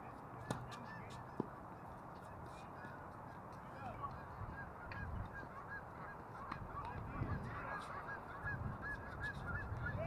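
A flock of geese honking over and over, thickest in the second half, over low wind rumble. Two sharp tennis-ball strikes off a racket about half a second and a second and a half in.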